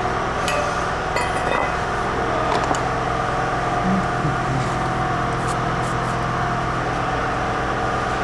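Steady machine hum of the workshop, with a few light metallic clinks of hand tools on the brake parts in the first few seconds.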